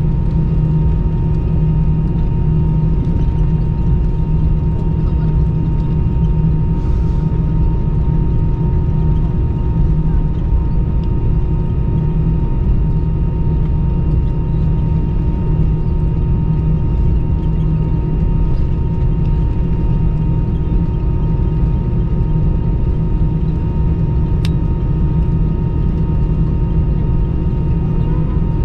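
Steady cabin noise of an Airbus A319 jet on the ground after landing, with its engines at idle during taxi: a deep, even rumble with a few steady whining tones above it.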